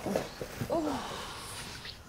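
A woman's weary sigh, one short voiced breath falling in pitch about a second in, over soft rustling.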